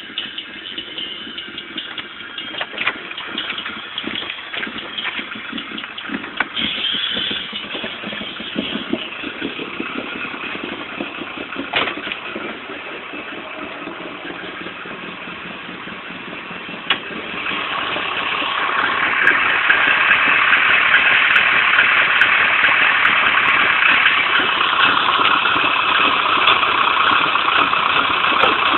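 Nissan KA24DE 2.4-litre four-cylinder engine idling roughly, the rough idle being the fault shown. About two-thirds of the way through there is a sharp knock, then the engine sound grows louder and stays steady.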